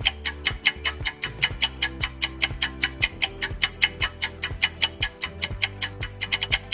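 Quiz countdown-timer sound effect: quick, even clock-like ticking over soft background music with held low notes.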